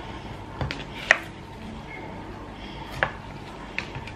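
A serving spoon knocking and scraping against a glass baking dish while scooping roast potatoes and chicken: four sharp clinks, the loudest about a second in.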